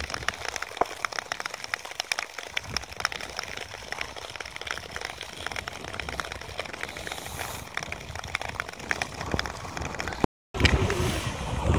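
Long-distance ice skates on clear natural ice: blades scraping and gliding, with many sharp, irregular ticks and crackles. Near the end the sound cuts out for a moment and comes back as louder wind noise on the microphone.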